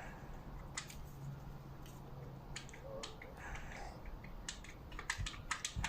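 Irregular light clicks and taps of hand tools on the metal shifter linkage while the gear selector is being unbolted, with a quicker run of clicks near the end. A faint steady low hum stops about halfway through.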